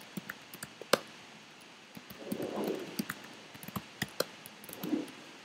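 Computer keyboard being typed on: short, irregular key clicks, with a soft low sound twice, about two and a half seconds in and near the end.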